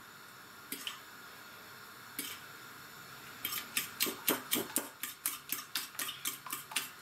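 A fork beating raw eggs in a ceramic bowl: two single clicks, then from about three and a half seconds in a quick run of tines clicking against the bowl, about five a second.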